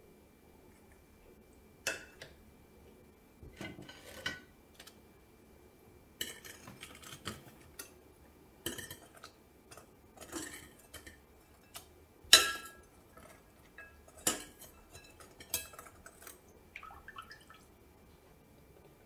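Metal kitchen tongs clinking and tapping against a glass bowl and a ceramic plate in a string of irregular clinks, with one louder clink a little past the middle that rings briefly.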